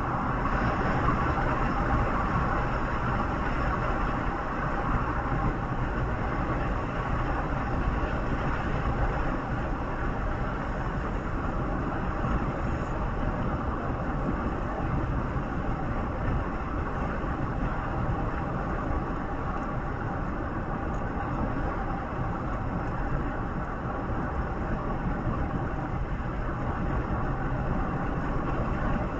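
Steady rumble of a moving road vehicle heard from inside, with constant engine and tyre noise.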